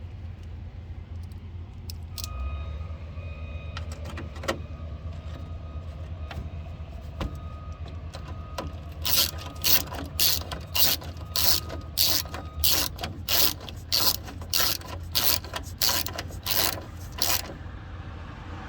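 Hand ratchet wrench driving in a 10 mm headlight bolt. After about nine seconds it ratchets in a steady run of strokes, about two a second, for some eight seconds.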